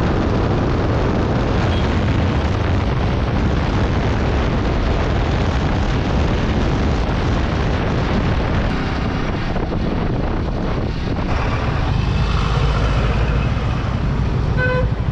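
Heavy wind noise on a helmet-mounted microphone from riding a Yamaha R15 V3 motorcycle at speed, with the bike's engine running underneath. A short pitched beep sounds near the end.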